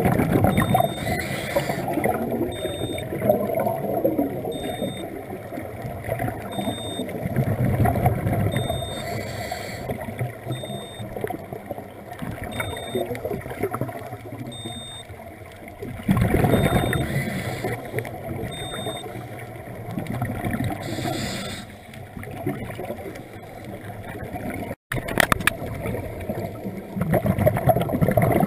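Scuba regulator breathing heard underwater: bubbly, gurgling exhalations about every five to eight seconds, over a steady low rumble of water against the camera housing.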